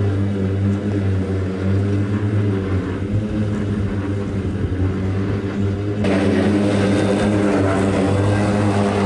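Greenworks Optimus Z 36-inch electric stander mower running at its slowest blade speed while cutting grass, a steady electric hum from the spinning blades. About six seconds in, the sound turns closer and brighter.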